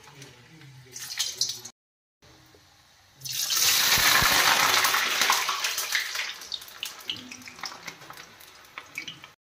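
Raw blanched potato fries going into hot oil in an iron kadhai: a sudden loud sizzle about three seconds in that fades over a few seconds into light crackling.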